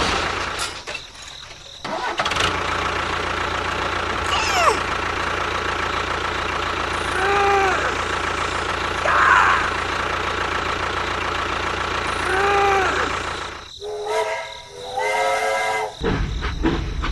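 A vehicle engine running steadily, with short pitched squeaks or calls over it a few times. The engine stops about fourteen seconds in.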